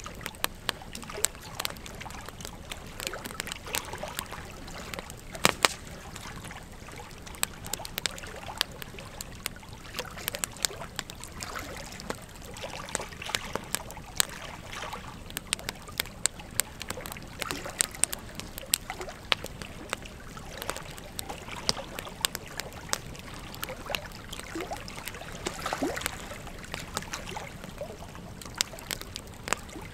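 Wood fire burning: logs crackling with frequent irregular sharp pops, a few much louder than the rest, over a steady soft hiss of the flames.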